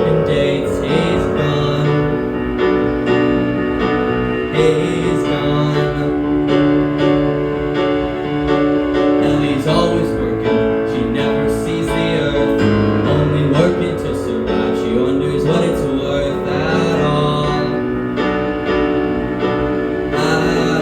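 Piano playing the accompaniment to a musical-theatre song, with a voice singing over it at times.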